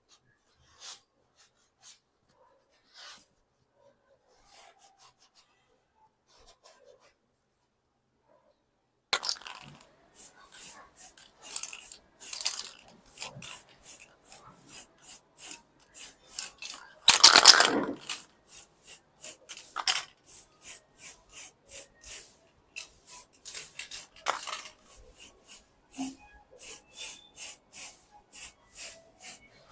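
After a few faint ticks, a run of short rubbing and scraping strokes starts about a third of the way in, roughly two or three a second, with one louder stroke near the middle: a part being scrubbed or sanded by hand during a rusty bicycle restoration.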